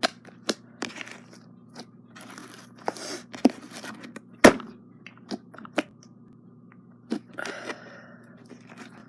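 Hands squishing and stretching slime, with irregular sharp pops and clicks from trapped air and short squelchy rustles; the loudest pop comes about four and a half seconds in.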